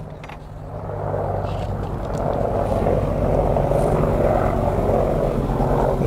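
Helicopter flying over, its rotor and engine noise growing louder over the first couple of seconds and then holding steady and loud.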